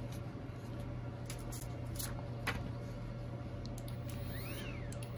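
A few light clicks and taps of plastic parts being handled. Near the end, a cordless electric air duster's small motor briefly whines up and back down on a short press of its trigger, which must be held down to keep it running.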